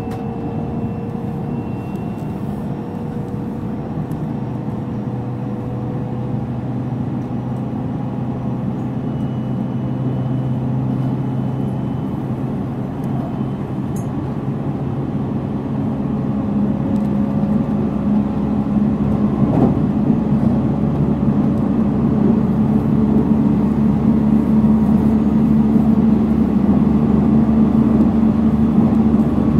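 Onboard running sound of a JR Central 313 series 300-subseries electric multiple unit: a steady rumble of wheels and traction motors with faint steady tones, growing louder in the second half.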